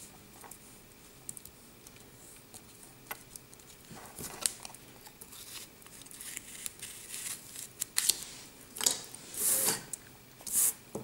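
Kinetic sand being crumbled by hand and scraped off a plastic castle mould with a plastic spatula: soft crumbly rustling with a few light clicks, then louder short scrapes and plastic taps over the last few seconds.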